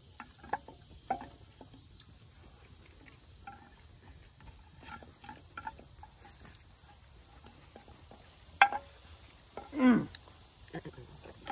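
Steady high-pitched chirring of crickets, with a few light clicks and a sharp clack about eight and a half seconds in. A brief voice-like sound glides downward about a second later.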